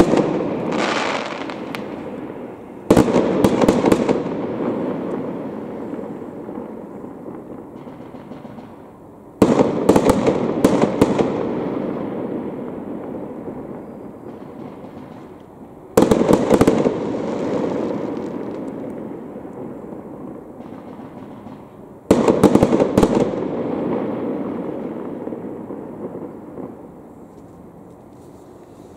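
Aerial fireworks exploding, with a burst already fading at the start and then four loud volleys about six seconds apart. Each volley is a quick cluster of sharp cracks followed by a long rumble that slowly dies away. The shells are crackling ones.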